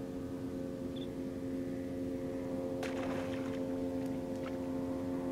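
Steady motor hum, with a brief splash about three seconds in: a redfish swiping at a surface-buzzed soft plastic lure and missing it.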